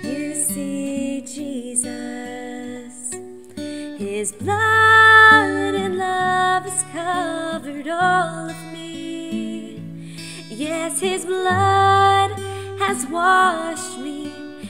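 Worship song: a woman singing a slow melody over acoustic guitar.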